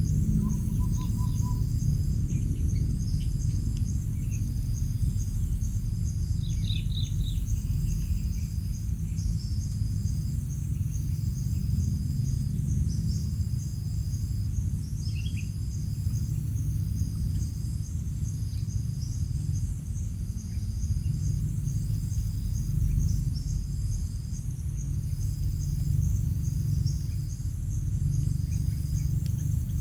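Insects, crickets by their sound, chirping in steady repeating trains of high pulses over a constant low rumble. A few brief higher chirps come about a quarter and a half of the way in.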